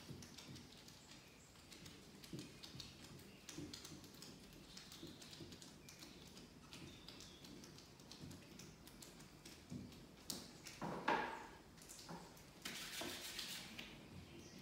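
Faint light taps and rubbing as gloved fingers press and smooth glazing putty along the edge of a glass pane in a wooden window sash, with one louder knock about eleven seconds in and a longer stretch of rubbing near the end.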